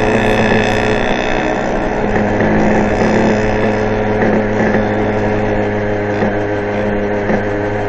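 Fantic Motor Issimo 50 cc two-stroke moped engine running steadily under load while climbing. A higher whine fades out about a second and a half in.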